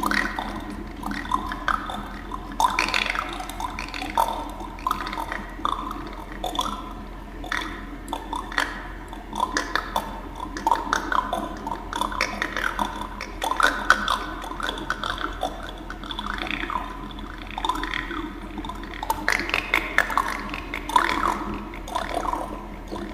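Homemade horror sound effect of wet bubbling and dripping: many short, irregular plops, each rising in pitch, over a steady low hum.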